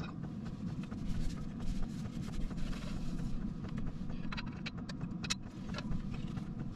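Steady low rumble inside a small camper van, with a few sharp light clicks of camping pans being handled about four to five seconds in.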